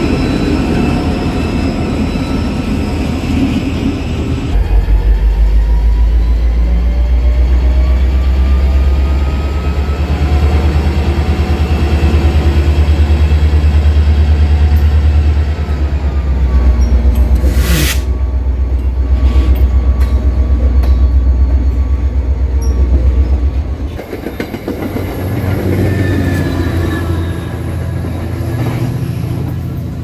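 EMD diesel-electric freight locomotive running close by, a loud, deep, pulsing engine rumble with tones above it that slowly rise and fall. There is one sharp crack about two-thirds of the way through, and near the end the rumble drops away abruptly, leaving a quieter, more distant train.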